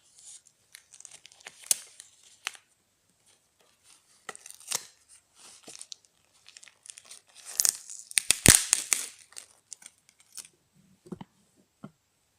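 Newspaper and plastic parcel wrapping being torn open and crumpled by hand, in irregular rustling bursts with the loudest tearing a little after the middle.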